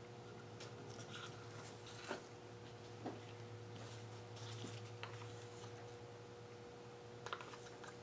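Faint clicks, taps and light scraping of small plastic paint cups and a wooden craft stick being handled, a few sharp ticks standing out, over a steady low hum.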